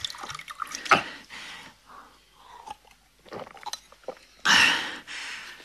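A man drinking a glass of liquor: glass clicks and knocks, mouth and swallowing sounds, then a loud breathy exhale near the end.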